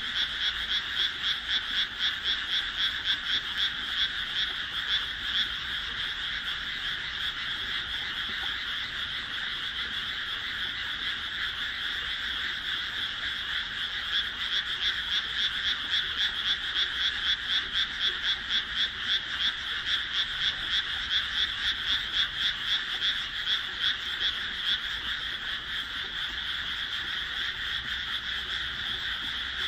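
A dense chorus of many frogs calling together in rapid pulsed trills. It swells into a louder, more rhythmic pulsing in the first few seconds and again around the middle.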